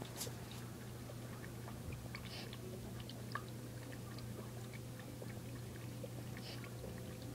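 Dog lapping water from a bowl: faint, scattered wet laps and clicks over a steady low hum.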